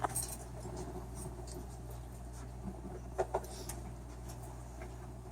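Quiet room tone with a steady low hum, and a few faint rustles and light clicks of small objects or paper being handled.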